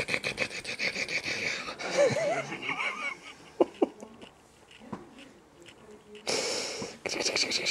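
A person laughing in breathy, wheezing bursts, strongest at the start and again near the end, with a short voiced laugh about two seconds in.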